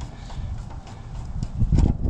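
Irregular clicks and knocks of hand tools and metal parts being handled while a contactor is removed from an AC condenser unit, with a heavier knock near the end.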